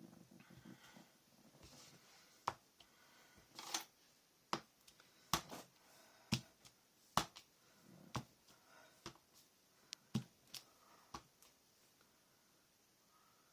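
Repeated sharp taps of a rubber stamp on its block being pressed onto an ink pad and onto paper, about a dozen irregular taps roughly a second apart, with light paper rustling at the start.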